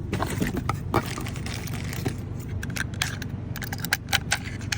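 A run of small, sharp metallic clicks and rattles from locksmith tools and keys being handled at a mailbox lock, over a steady low hum of a running vehicle engine.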